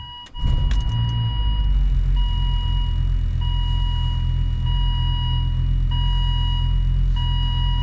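Volvo S80 2.5 TDI's five-cylinder turbodiesel on a cold start at −14 °C: a brief crank, catching about half a second in, then settling into a steady loud raised idle of a little over 1000 rpm. An electronic chime repeats throughout, each beep about a second long with short gaps.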